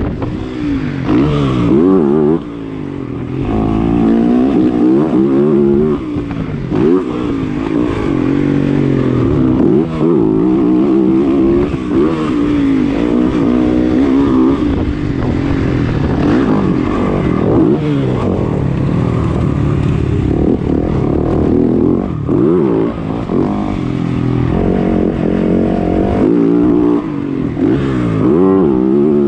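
Motocross bike engine heard from on board while riding a dirt track. Its pitch rises and falls every second or two as the throttle opens and closes, with short drops in level between the pulls.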